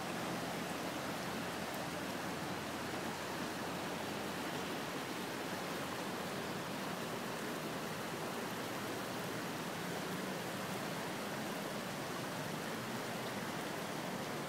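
Floodwater rushing across a paved street in a steady, unbroken rush of moving water.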